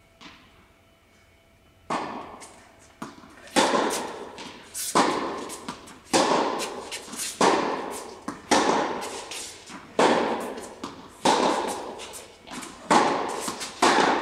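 Tennis rally: the ball struck by rackets and bouncing on the court, a sharp pop about once a second with a long echo after each, as in a large indoor tennis hall. The hits start about two seconds in.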